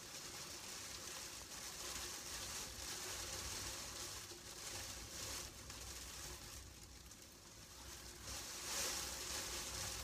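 Hail hitting the glass panes of a window, heard from inside as an even hiss that swells slightly about two to three seconds in and again near the end.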